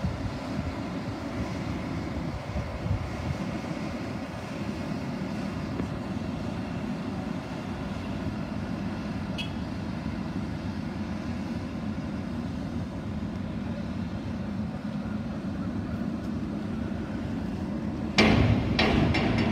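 A Class M10A diesel locomotive's engine idles steadily while it is turned on a hand-pushed turntable. Near the end a sudden, much louder sound cuts in.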